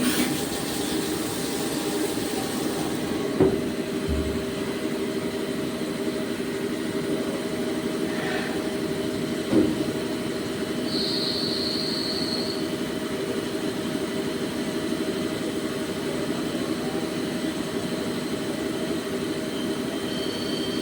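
CNC turning machine (lathe) running with a steady mechanical hum made of several held tones, with a sharp knock twice, about three and a half and nine and a half seconds in, and a brief high whine around eleven seconds in.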